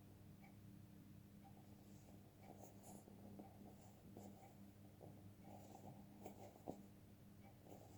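Near silence: a faint steady low hum, with soft scratchy rustling and a few small clicks, the clearest near the end.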